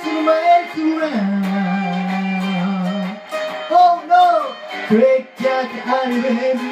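A man singing a rockabilly song while playing an orange Gretsch hollow-body electric guitar, with one long low note held from about a second in to about three seconds in.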